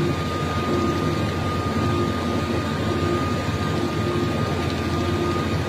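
Engine of a heavy vehicle running steadily as it moves through deep floodwater, a continuous drone with a thin steady whine above it.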